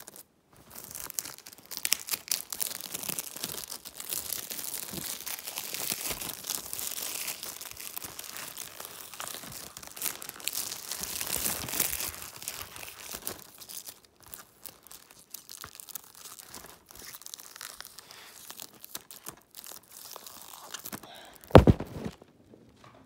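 Plastic shrink-wrap being torn and peeled off a DVD case by hand: a long run of crinkling and tearing with many small clicks. A single loud thump comes near the end.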